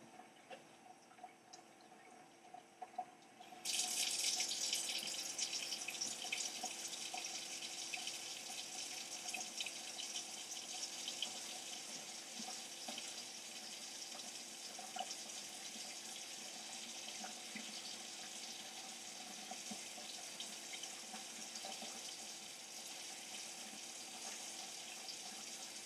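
A kitchen tap turned on about four seconds in and left running, a steady stream of water into the sink while the water is run until it reaches lukewarm. A few faint clicks come before it.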